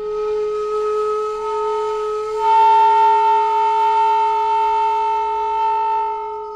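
End-blown bamboo flute playing a multiphonic. A single held note, about two and a half seconds in, breaks into a louder sound with several notes at once, then fades out near the end.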